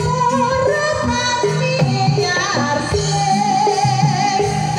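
Live jaranan gamelan music: kendang hand drums played with the hands under held bronze gong tones, and a bending melody line above.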